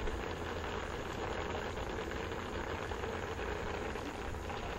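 HHO electrolyzer cell fizzing steadily as it makes gas while drawing about 16 amps, over a low hum.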